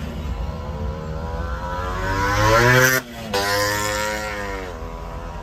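Vehicle engine revving up as it accelerates, with a brief dropout about three seconds in, then running steadily and easing off near the end.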